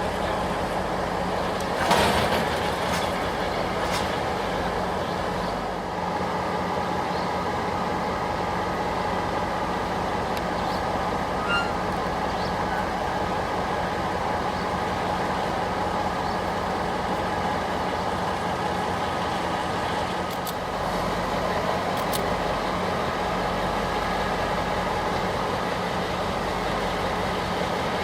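Taiwan Railways ordinary train of old non-air-conditioned passenger coaches running, a steady rumble with a sharp clank about two seconds in and a few lighter clicks later.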